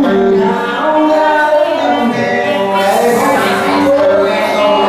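Loud music with a man singing into a microphone, the notes held and changing steadily.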